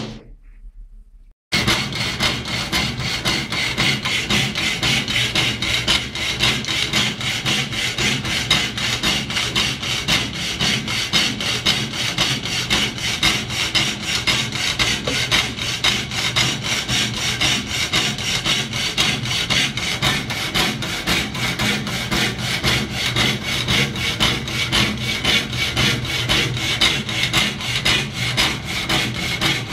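Homemade motor-driven power hacksaw cutting a steel square tube, the blade rasping back and forth in a steady, even rhythm of strokes. It starts abruptly about a second and a half in.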